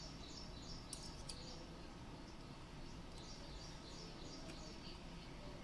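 Faint birds chirping: a rapid run of short high chirps repeating several times a second, with two faint clicks about a second in.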